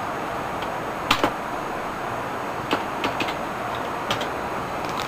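A handful of sharp, scattered keyboard key presses, a couple in quick pairs, over the steady whir of a desktop PC's fans.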